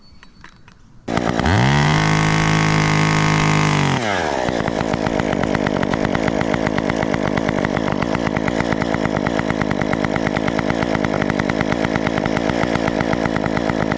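Chainsaw revving to full throttle about a second in, then its pitch drops at about four seconds and it runs on steadily with a rough, pulsing note as it cuts through a dead tree branch.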